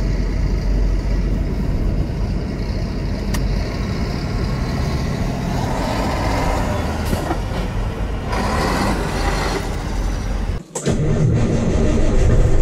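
A 1983 Mack cabover semi's diesel engine running with road and traffic noise, heard from a nearby vehicle. After a brief break about 10.7 s in, it runs louder, heard from inside the Mack's own cab.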